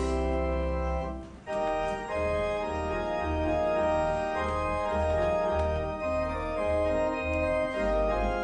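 Church organ playing the hymn tune in sustained chords over a low pedal bass, with a brief break between phrases about a second and a half in.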